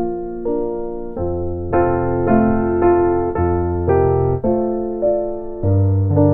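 Gentle piano music: soft chords changing every half second to a second over held low bass notes. No fire crackle stands out.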